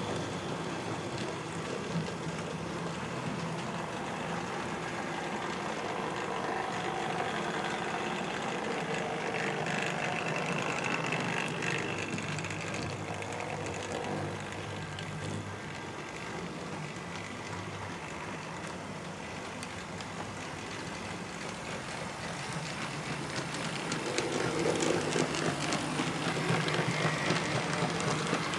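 OO gauge model trains running round the track: a steady whirr of small electric motors and wheels on the rails. It gets louder about 24 seconds in, with fast clicking, as a train and its coaches pass close by.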